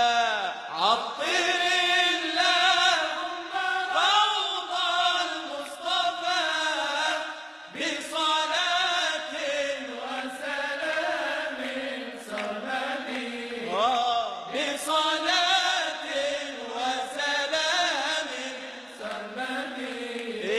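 A man singing an Arabic religious chant (inshad) in long, wordless, ornamented phrases, his voice sliding up and down in pitch.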